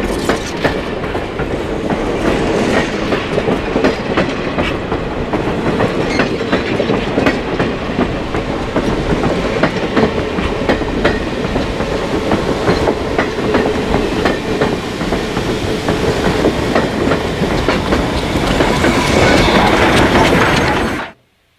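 Passenger cars of a steam excursion train rolling past close by, their wheels clicking over the rail joints. Near the end the steam locomotive, Western Maryland 1309, comes alongside with a rising hiss of steam, and then the sound cuts off suddenly.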